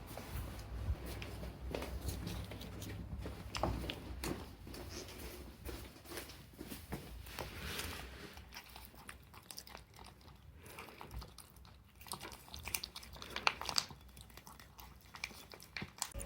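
Irregular small clicks and crunching sounds, with no meowing.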